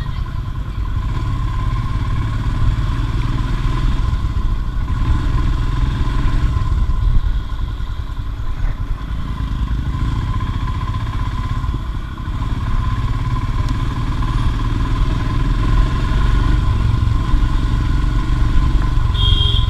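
Royal Enfield Himalayan's 411cc single-cylinder engine running under way, with wind rushing over the microphone. The engine level dips briefly about two-thirds of the way through.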